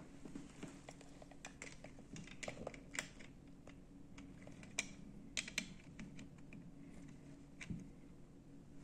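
Faint, irregular clicks and taps of small plastic Lego pieces being handled as the roof is fitted onto a Lego car.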